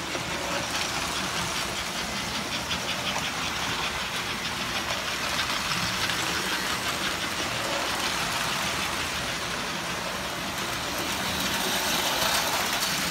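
American Flyer electric toy trains running on metal track: a steady whir and clatter of motors and wheels on the rails, growing a little louder near the end as a train passes close.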